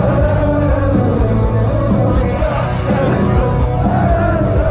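Live metalcore band playing loudly through a concert PA, with singing over the heavy guitars and drums, heard from inside the crowd.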